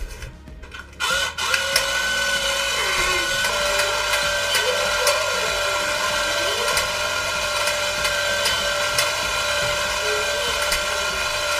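Battery-powered electric motor of a plastic model four-cylinder engine kit switched on and running, driving the crankshaft, pistons and fan. After a few clicks from the switch and battery box, a steady whir starts about a second in, with light clicking and rattling from the plastic parts.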